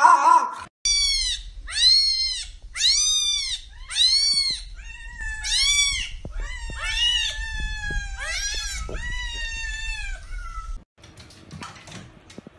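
A cat meowing over and over, about eight calls in a row, each rising and falling in pitch, the later ones longer and drawn out. The meowing cuts off suddenly near the end.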